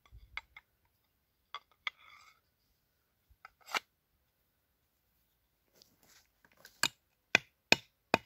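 Hand axe chopping into wood: a few faint knocks and clicks, then from about seven seconds in a run of sharp blows, roughly two a second.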